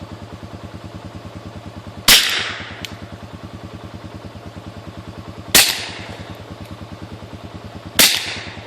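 Three suppressed shots from a Glock 19 9mm pistol fitted with a Huntertown Arms Guardian 9 suppressor, a few seconds apart, each a sharp crack that dies away quickly. Under them an ATV engine idles steadily.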